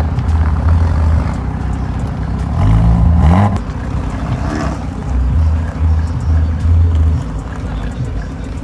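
Jaguar F-Type coupe's engine running at low revs as the car pulls away slowly, with one quick rev about three seconds in that rises in pitch and ends in a short sharp burst from the exhaust.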